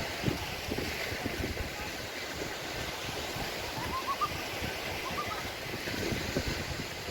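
Sea waves washing on the beach, with wind buffeting the microphone. Two faint clusters of short rising chirps sound around the middle.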